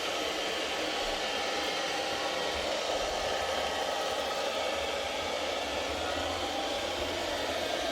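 Robot vacuum cleaner running with a steady whir as it moves about cleaning the floor.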